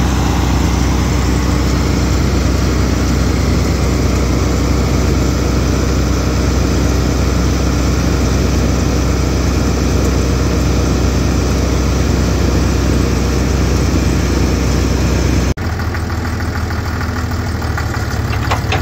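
Case 2290 tractor's diesel engine running steadily while it powers a silage bagger. Near the end the sound cuts suddenly to a quieter engine running.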